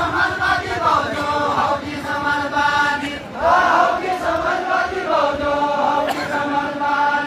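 A group of voices singing a Deuda folk song of far-western Nepal together, in long held, chant-like phrases, with a new phrase starting about halfway through.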